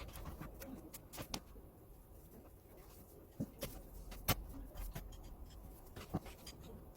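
Faint, irregular knocks and clicks of a knife cutting beef on a cutting board, the loudest about four seconds in.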